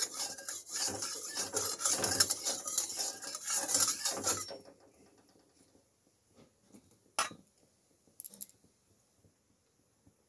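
Metal spatula scraping and rubbing inside a steel kadai for about four and a half seconds while fish fry in oil, then a single sharp knock about seven seconds in.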